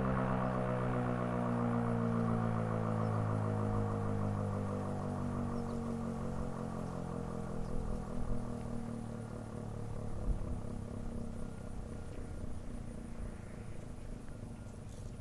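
Werden Electric P-127 outdoor warning siren winding down at the end of a full alert signal: its tone slowly falls in pitch and fades. Gusts of wind rumble on the microphone.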